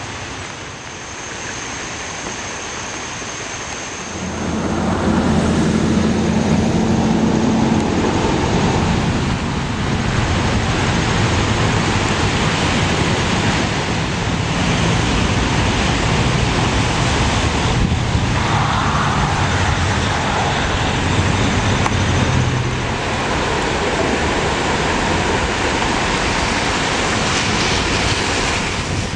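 Steady rushing noise of a flood-swollen creek running high and fast, with passing road traffic: an engine hum joins and the whole gets louder about four seconds in.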